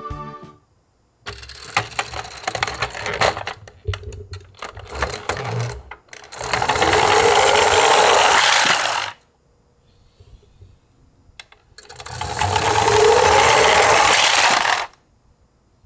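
Toy die-cast garbage trucks handled with a plastic-and-metal clatter of clicks and knocks, then rolling down a plywood slope twice: each run is a loud steady whir of small wheels on wood lasting about three seconds and stopping abruptly.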